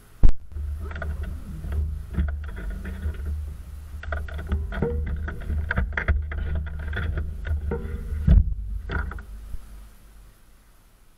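Handling noise close to a bicycle-mounted camera while the bicycle stands still: a sharp knock, then a low rumble with scattered clicks and rustles, and a second thump near the end before it goes quiet.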